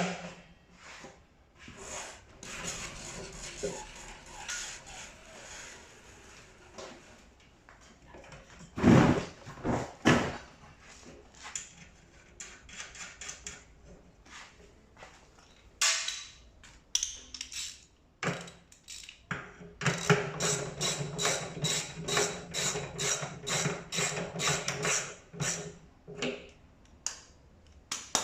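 Knocks and clatter of tumble dryer parts and tools being handled during assembly, with two loud knocks about a third of the way in. In the second half comes a run of rapid, evenly spaced clicks over a low hum, lasting about five seconds.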